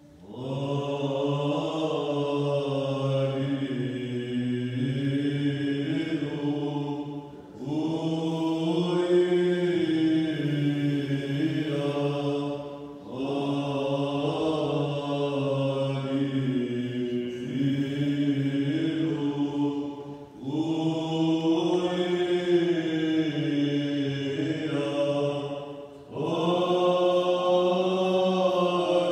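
A small group of men chanting an Orthodox hymn in Arabic in Byzantine style, with a steady low note held beneath the moving melody. The singing goes in five long phrases, each broken off by a short pause for breath.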